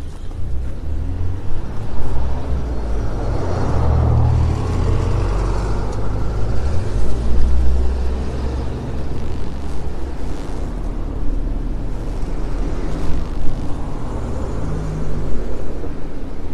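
Steady low rumble of wind buffeting the microphone, with road and tyre noise from a city bicycle being ridden along a street, and traffic passing.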